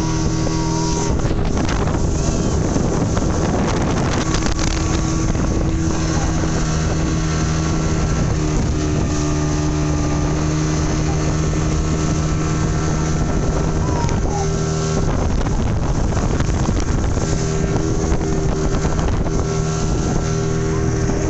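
Speedboat's engine running steadily under way at an even pitch, with wind buffeting the microphone and water rushing past the hull.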